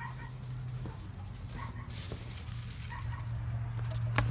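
Chickens giving a few short, soft calls over a steady low hum, with a rustle in the hay about two seconds in and a sharp click near the end.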